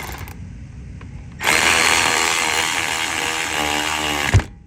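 A power tool runs loudly for about three seconds, starting about a second and a half in, its pitch shifting near the end, and stops with a clunk.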